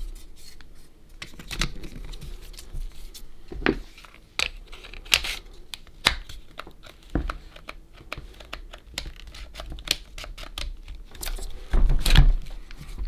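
Hands handling the plastic body of a cordless drill and its opened battery pack: scattered clicks, knocks and rustles of plastic, with a louder bump near the end.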